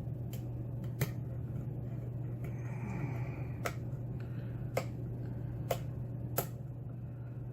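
Sharp metallic clicks from lock picking: a pick and tension wrench working the pins of a Schlage pin-tumbler lock, about six separate clicks spread over several seconds, over a steady low hum.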